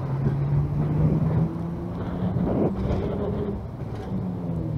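A motor vehicle's engine running in street traffic, its pitch climbing over the first couple of seconds and falling back near the end.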